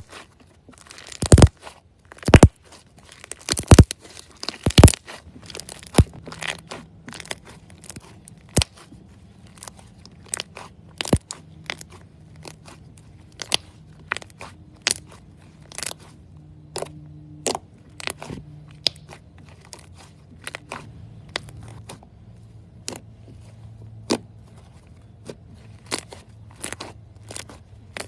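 Slime being pressed and squeezed by hand, making sharp, irregular crackling pops. A few loud pops come in the first five seconds, then a steady stream of smaller clicks and crackles.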